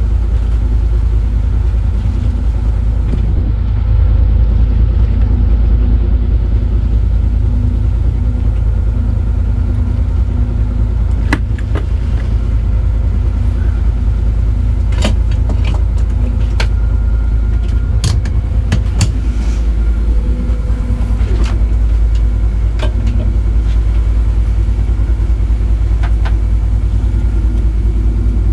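Amel Super Maramu sailboat's inboard diesel engine running steadily under way, a constant low rumble with a steady hum. A few sharp clicks or knocks come now and then over it.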